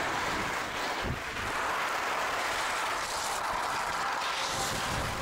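Steady rushing hiss of skiing downhill through fresh powder, picked up by a helmet-mounted camera: wind over the microphone and skis running through the snow.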